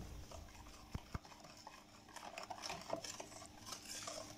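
Wire whisk stirring thin liquid cake batter in a bowl, faint, with the wires clinking lightly against the bowl, including two sharp clicks about a second in.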